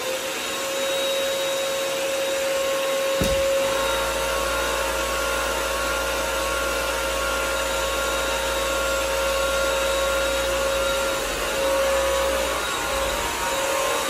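Bissell CrossWave Pet Pro wet-dry vacuum and mop running steadily on a hard floor: a constant motor whine over the hiss of suction. About three seconds in, a lower hum joins it and holds.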